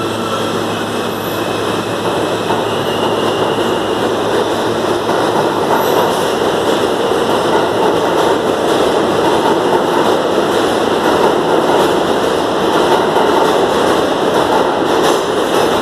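R160 New York City subway train pulling out of the station and accelerating along the platform. Its wheel and running noise builds over the first several seconds, then holds steady and loud as the cars rush past.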